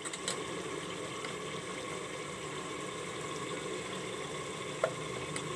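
Tomato and onion masala cooking in oil in a pressure cooker pot, a steady soft sizzling and bubbling, with a single light tap just before the end.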